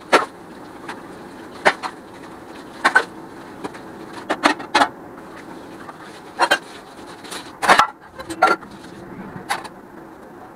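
Steel utensils clinking and knocking against each other and the sink as they are washed by hand, about nine sharp clanks at irregular intervals.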